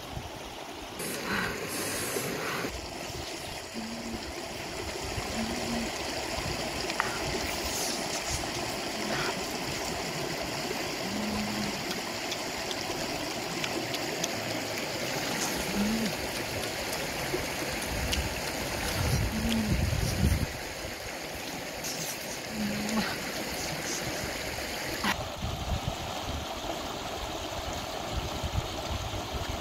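Shallow river running fast over rocks, a steady rush of flowing water.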